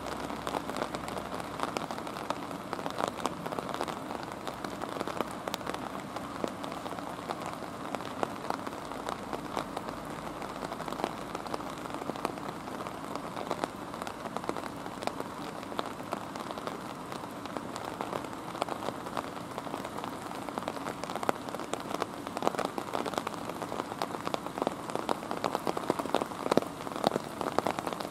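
Rain falling steadily, with many individual drops ticking close by; the ticks get sharper near the end.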